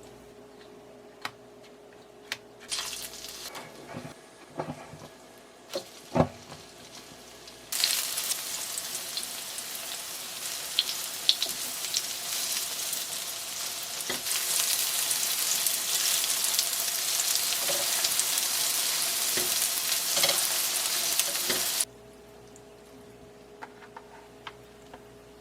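Mushroom jeon frying in a pan of oil, a steady sizzle that gets louder partway through and cuts off suddenly near the end. Before it come a few light clicks and knocks of kitchen utensils.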